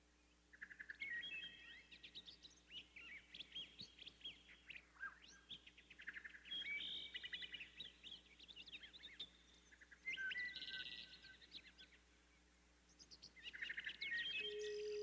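Small songbirds chirping and twittering in four quick, high-pitched bursts of song with short pauses between them. A steady hum starts near the end.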